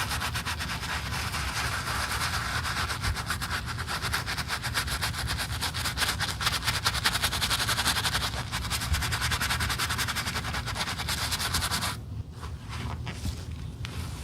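Fast, even scraping strokes worked on a shoe in a rapid steady rhythm, stopping abruptly about twelve seconds in, followed by a few quieter handling sounds.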